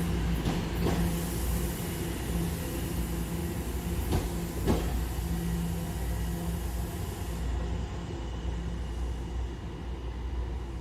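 TTC subway train running with a steady hum and a high hiss, with two sharp clacks about four seconds in; the hiss stops about three-quarters of the way through.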